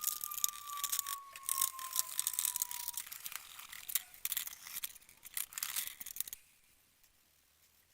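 Rapid metallic clicking and rattling of a small mechanism being worked by hand, with a faint whine sliding down in pitch over the first three seconds. It stops about six seconds in.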